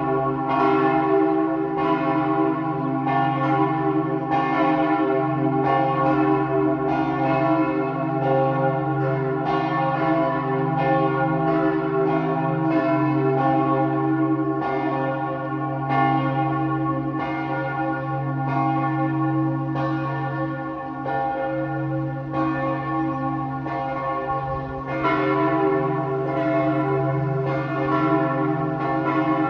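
A peal of church bells ringing together, strokes overlapping more than once a second over a steady deep hum.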